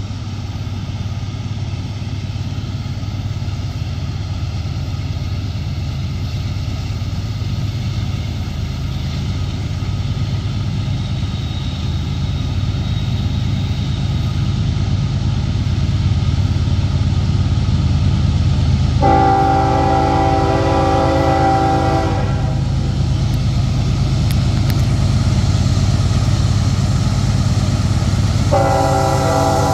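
Union Pacific diesel locomotives leading a grain train approach, their low engine rumble steadily growing louder. The lead locomotive sounds its horn, several notes at once, in a blast of about three seconds a little past halfway, then again near the end.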